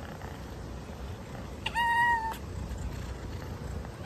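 Kitten meowing: one high, steady meow about half a second long near the middle, and another meow starting right at the end.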